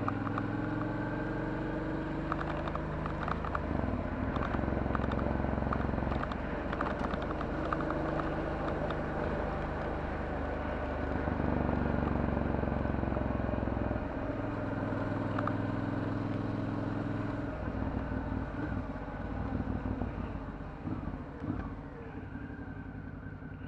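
Suzuki DL650 V-Strom's 645 cc V-twin running through a titanium Akrapovic exhaust while riding, its note shifting in steps several times as the rider changes gear and works the throttle. In the last few seconds it eases off to a lower, rougher note.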